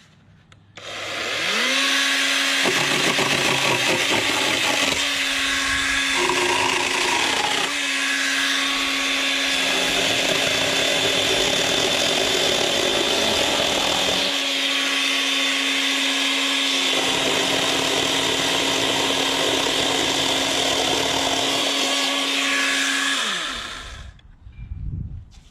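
Greenworks 80V battery-powered brushless chainsaw starting up about a second in and running with a steady motor whine while the chain cuts through a 3 to 4 inch branch, the sound shifting as the chain bites into the wood. The motor winds down near the end.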